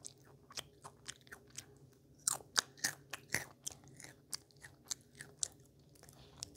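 A child chewing potato crisps close to the microphone: a quick, irregular run of sharp crunches.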